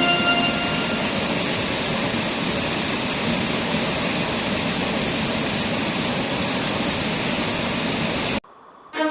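Steady rushing of a waterfall pouring into a mountain-stream plunge pool, a constant full-range noise that cuts off suddenly near the end. Background music fades out in the first second.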